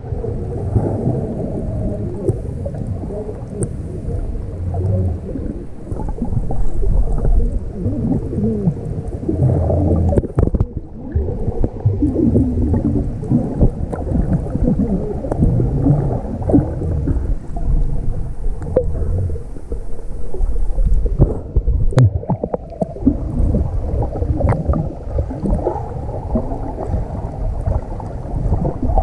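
Muffled underwater churning and bubbling from the water around swimmers, picked up by a camera in its waterproof housing: a dull, fluctuating rumble with no treble, broken by a few small knocks.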